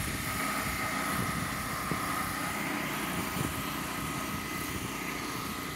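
Portable gas generator running steadily beside an inflated water slide, with the slide's blower kept going: an even engine drone with a thin steady whine.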